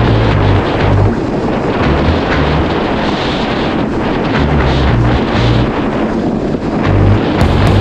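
Heavy wind buffeting on the microphone from riding a Yamaha GP1800R SVHO jet ski over the ocean at speed. The watercraft's running engine and rushing water lie mostly underneath the wind.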